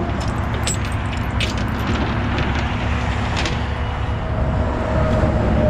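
Steel tow chain and hook clinking and rattling against a rollback's steel diamond-plate deck, several sharp clinks in the first three seconds or so, over a steady low vehicle rumble.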